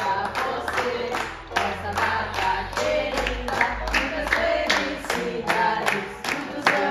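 A small group singing a birthday song together, clapping in time, about three claps a second.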